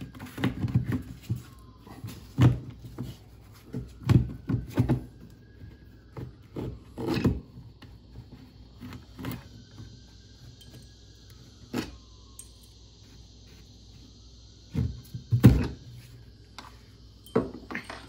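Handling noise from a plastic quick-release mounting puck being lifted off and set down on a boat deck: scattered knocks and clunks a second or more apart, the loudest about fifteen seconds in.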